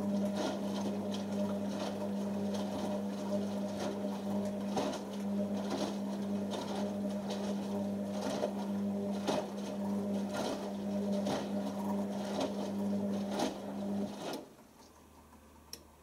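Beko WM6103 washing machine turning its drum during the wash: a steady motor hum, with the single wet hoodie slapping and knocking inside the drum about once a second. The drum motor stops about 14 seconds in.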